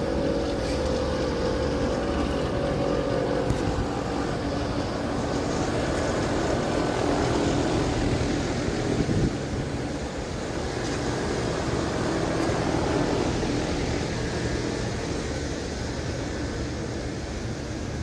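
Outdoor heat pump condenser units running: the fans whir and the compressors hum steadily, the sound swelling and easing a little.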